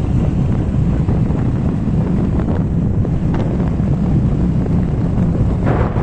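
Wind buffeting the microphone of a phone riding on a moving motorcycle: a steady, loud, low rumble.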